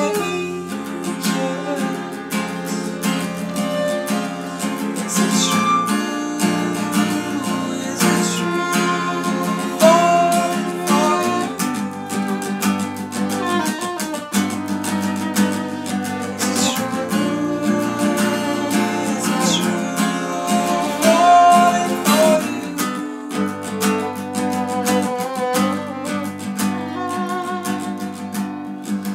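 Acoustic guitar strummed steadily, with a violin playing a melody over it.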